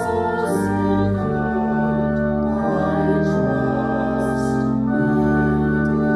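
A hymn sung by a small group of voices with organ accompaniment. Sustained organ chords change every second or so under the singing.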